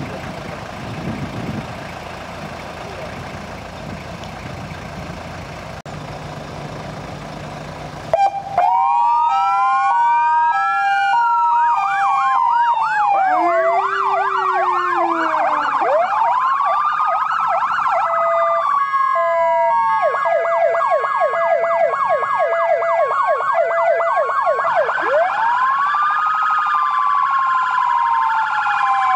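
Fire engines' diesel engines idling, then about eight seconds in several electronic sirens switch on at once and sound together, overlapping slow wails, fast yelps and stepped two-tone hi-lo patterns.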